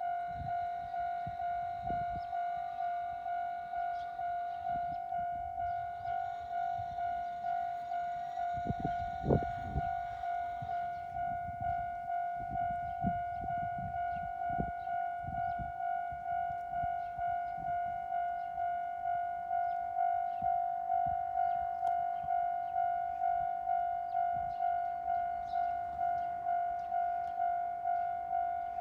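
A level-crossing warning bell rings steadily, one pitched ding repeating about one and a half times a second. About a third of the way in, a 701 series electric train passes with a low rumble and several sharp wheel knocks, then the bell carries on alone.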